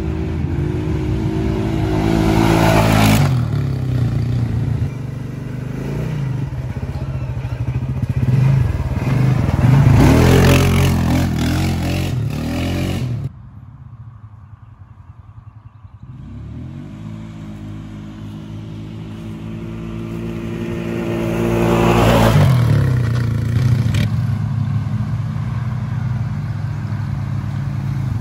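2018 Polaris Sportsman 570 ATV, its single-cylinder engine revving hard as it accelerates and passes close by, rising and falling in pitch with each pass. About 13 seconds in the sound drops off sharply to a faint, distant engine, which then builds again as the quad comes back.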